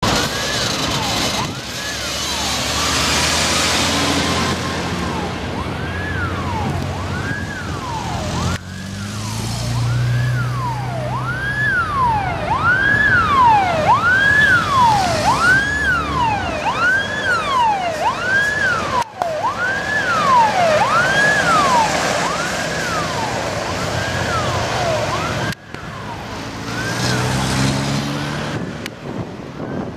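Tesla AZD 500-series electronic siren on an old fire truck, sweeping up and down about once a second, loudest in the middle and fainter near the end. The truck's engine and passing traffic run underneath, with the engine coming up briefly as the truck passes.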